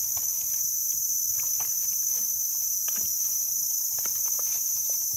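Steady high-pitched chorus of insects buzzing without a break, with light scattered crackles and rustles of dry leaf litter as a mushroom is dug out of the ground by hand with a small knife.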